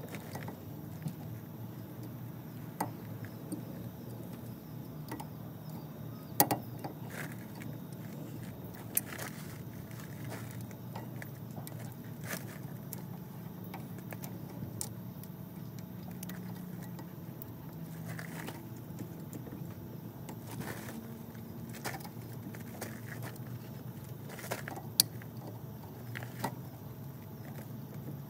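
Scattered metallic clinks and taps of hand tools on the steel hardware of a Land Pride rotary cutter, as a cotter pin and nut are worked loose, with a few sharp, loud strikes. A steady low hum runs underneath.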